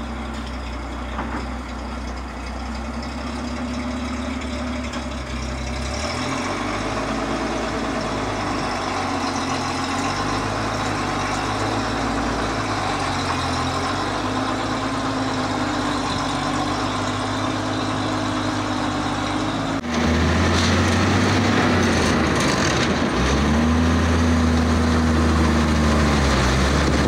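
The M2A1 half-track's White 160AX six-cylinder petrol engine running at a steady low speed, its pitch swaying slightly with the throttle. About 20 seconds in it becomes suddenly louder and heavier, heard from inside the cab.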